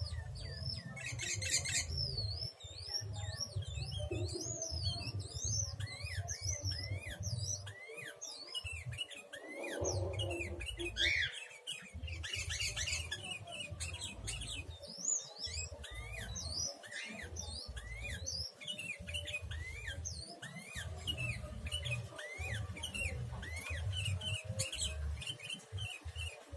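Sooty-headed bulbuls of the creamino colour form chirping and calling over and over, short quick up-and-down notes several a second, with a steady low hum underneath.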